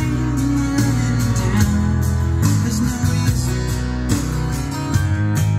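Recorded music with strong bass and a steady drum beat, playing through hi-fi loudspeakers driven by an NAD 2200 stereo power amplifier during a listening demo.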